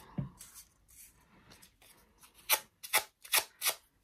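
A scissor blade drawn hard along paper petals to curl them, four quick scraping strokes in the last second and a half, with faint paper handling before.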